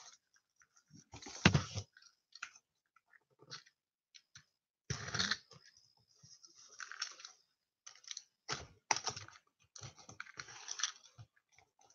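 Cardboard package being handled and cut open with a box cutter: irregular clicks, scrapes and short rasps of blade on tape and cardboard, the sharpest click about a second and a half in.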